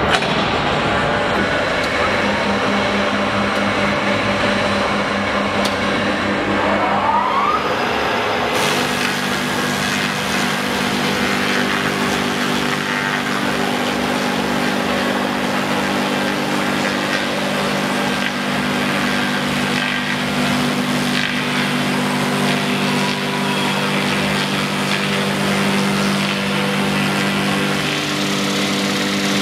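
OF28Ts log rounding machine running: a steady hum from its electric drive motors over the noise of the rotary cutter planing a log. A brief rising whine comes about seven seconds in.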